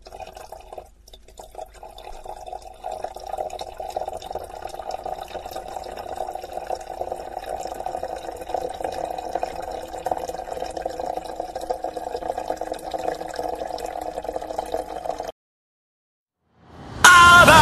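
A steady stream of liquid pouring and splashing, starting softly and building over the first few seconds, then cutting off suddenly near the end.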